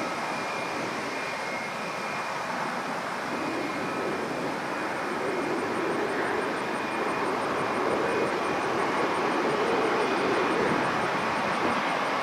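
Airbus A319 jet airliner on final landing approach, the steady roar of its twin jet engines growing gradually louder as it comes closer.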